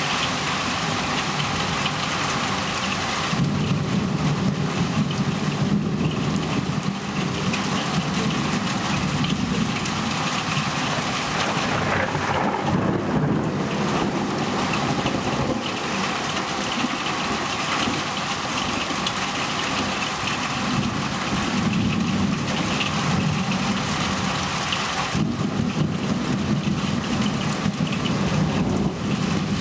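Thunderstorm: steady rain falling, with long rolls of thunder that swell and fade several times.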